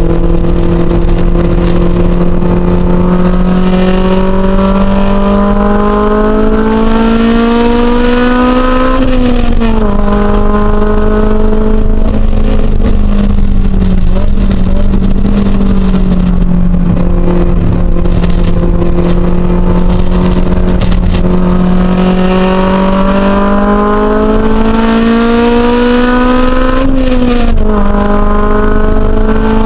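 Honda S2000's four-cylinder engine heard from inside the cabin, pulling up through the revs, with quick upshifts about nine seconds in and again near the end, and an easing, steadier note in between. A hiss from the tyres on the flooded track grows as the car speeds up toward each shift.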